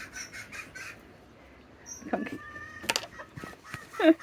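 Serama bantam chickens clucking: a pitched call about two seconds in and a few quick, short falling clucks near the end. A single sharp click about three seconds in.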